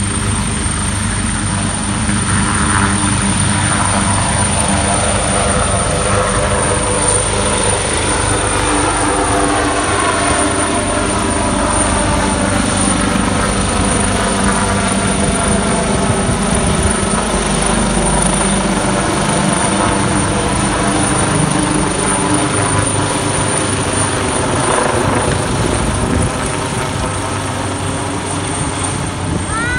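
Twin-turbine AgustaWestland AW139 air ambulance helicopter lifting off and climbing away overhead, a loud steady turbine whine and rotor beat. Its tones slide down in pitch about a third of the way in as it moves off.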